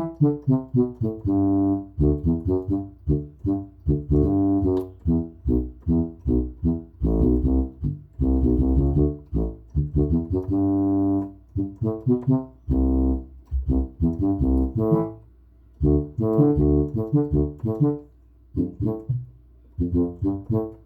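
Modified Yamaha PSS-370 portable keyboard playing its tuba voice in Tierra Caliente style: a quick run of short, detached low notes with a few held ones, and a couple of brief pauses in the second half.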